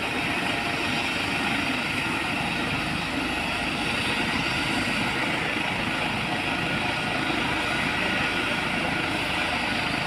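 Helicopter running steadily, its rotor and engine noise holding at an even level throughout.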